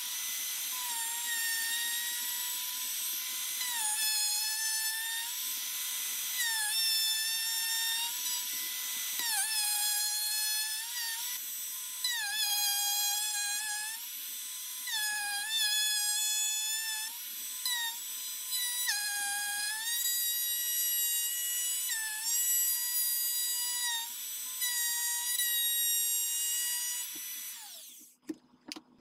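Bosch plunge router running with a large bit, cutting a finger groove into a walnut rifle-stock blank. Its high whine sags in pitch each time the bit bites into the wood, then recovers. It is taking many small passes because the cutter is large for the router. Near the end the router is switched off and its whine falls away as it spins down.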